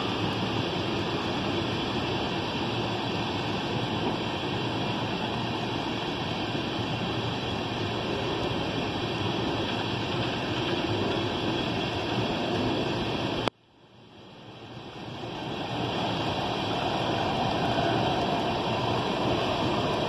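CSX freight train of tank cars rolling past in heavy rain: a steady, even rush of wheels on rail mixed with rain. About two-thirds of the way through, the sound cuts out abruptly and fades back in over a few seconds.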